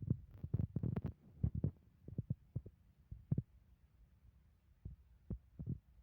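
Irregular low thumps and knocks, a dozen or more in quick succession, densest in the first two seconds and sparser afterwards.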